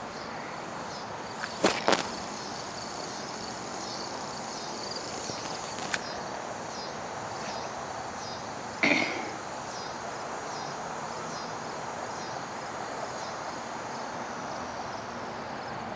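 Insects chirping in a steady repeating pattern over a constant background hiss. A few sharp clicks stand out: two close together about two seconds in, a faint one around six seconds and another near nine seconds.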